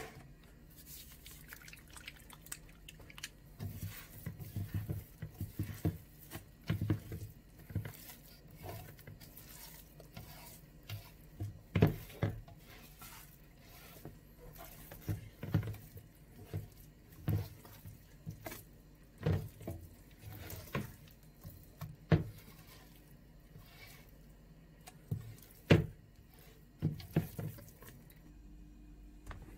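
An oiled hand kneading soft, sticky yeast dough in a stainless steel pot: irregular wet slaps and squelches, with sharper knocks against the pot now and then.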